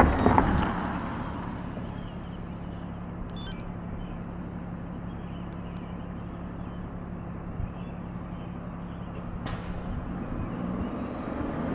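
Street traffic noise: a loud rush at the start that dies down within about two seconds, then a steady low hum under a quieter background. A single sharp click comes about nine and a half seconds in, and the traffic noise builds again near the end.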